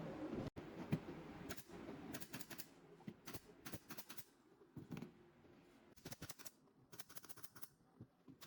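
Light, quick clicks and taps in short irregular clusters, like small hard pieces knocking or a hand tool tapping.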